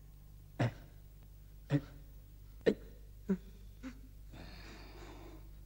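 A cartoon character's voice giving five short gasps, each dropping in pitch, spaced about a second apart, then a longer breathy exhale near the end.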